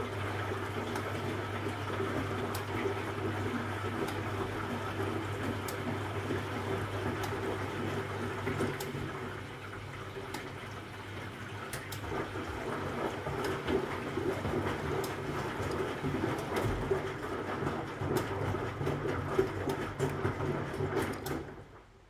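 Huwa Deluxe 65 washing machine in its wash phase: the Hanning wash motor hums as it turns the drum, and wet laundry and water slosh inside. About ten seconds in the drum pauses briefly, then it turns again, typical of the machine's left-right reversing wash. It stops just before the end.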